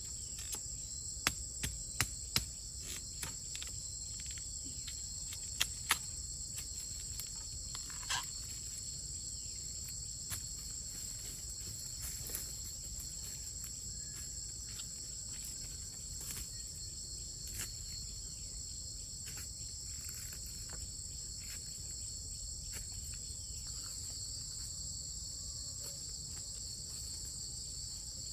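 Steady high-pitched insect chorus, with scattered sharp clicks and snaps, several in the first few seconds.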